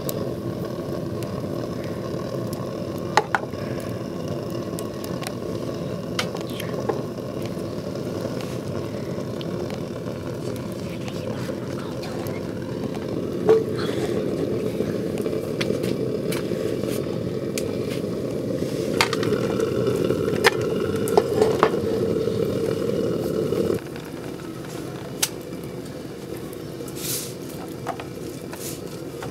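Steady low rush of a gas stove burner heating a non-stick frying pan of batter. Scattered sharp clinks of metal utensils and pans sound over it. The rush cuts off suddenly about 24 seconds in.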